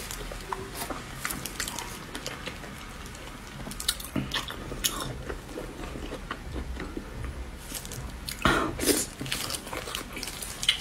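Close-up eating sounds of a person biting and chewing the skin of a braised pork leg: wet, sticky smacking and tearing with scattered clicks. There is a louder burst of chewing and tearing about eight and a half seconds in.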